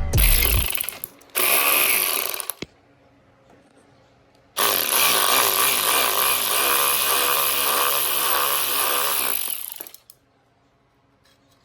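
Impact wrench running in two short bursts of about a second each, then a longer steady run of about five seconds that cuts off sharply, as bolts are taken off an engine.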